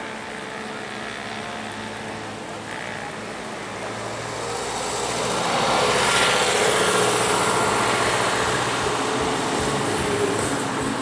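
River cruise ship passing close by: a steady low engine drone with a rushing noise that swells about five seconds in and stays up.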